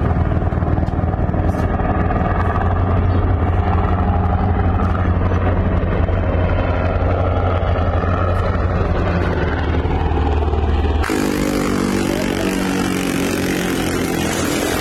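Motor vehicle engine running, a steady low drone. About eleven seconds in the sound changes abruptly to a harsher hiss with a steady buzzing tone.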